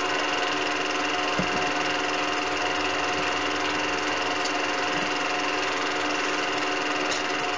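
Film projector running steadily: a constant mechanical whir with several steady tones and a few faint knocks.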